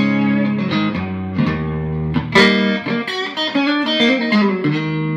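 Solid-body electric guitar with three single-coil pickups, freshly strung with D'Addario XL Chromes flatwound strings (10–48): a short blues phrase of picked single notes and chords, about eight fresh attacks, with a note bent up near the end.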